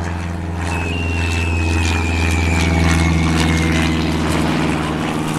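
Propeller airplane engine droning, with a thin high whine that slowly falls in pitch over about three seconds, the sound swelling and then easing as the plane flies by.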